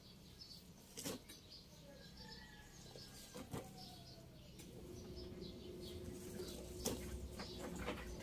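Faint rustling of leaves and a black plastic grow bag, with three sharp clicks about a second, three and a half seconds and seven seconds in, as a potted kamias (bilimbi) tree is handled. Faint sliding bird-like whistles are heard in the middle, and a steady low hum comes in about halfway.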